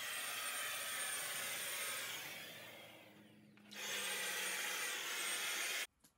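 Ozito electric paint spray gun running: a steady rushing blower with a high motor whine. About two and a half seconds in it winds down, the whine falling as it stops. Just under four seconds in it starts up again with a rising whine, runs steadily, and cuts off abruptly near the end.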